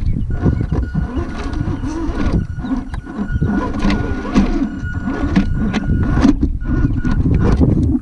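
RC4WD Trail Finder 2 scale RC crawler truck driving over rocks and through shallow water. A steady motor whine holds until about three quarters through, over a constant low rumble, with frequent knocks and clatter as the tyres and chassis strike stones.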